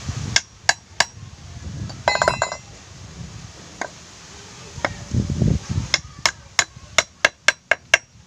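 A hammer driving nails into a wooden board: sharp metal-on-wood strikes, three quick ones at the start, a couple spaced apart, then a fast run of about ten blows in the last two seconds. A brief metallic jingle sounds about two seconds in, and dull knocks come a little after the middle.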